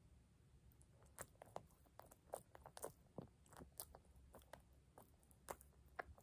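A sleeping dog smacking and licking its lips: a run of faint, irregular clicks from its mouth lasting about five seconds.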